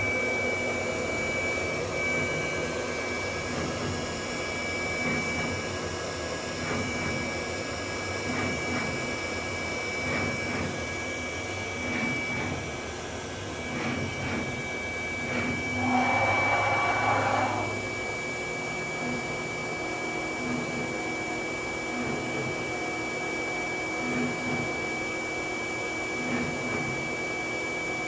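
Freedom Machine Tool Patriot CNC router running, its spindle giving a steady high whine over the rush of its dust collection. A louder, lower burst about 16 seconds in lasts under two seconds.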